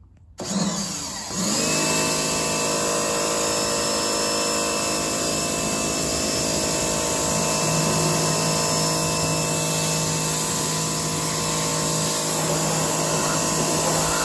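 Pressure washer starting up about half a second in: its motor spins up over about a second to a steady whine, then runs at an even pitch with a high hiss of spray.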